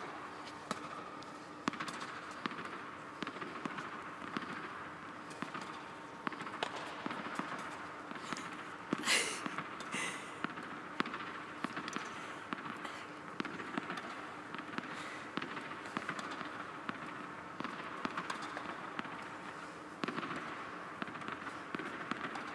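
Tennis balls struck by a racket and bouncing on an indoor court, sharp echoing pops at irregular intervals over a steady background hum. A louder brief noise comes about nine seconds in, and another a second later.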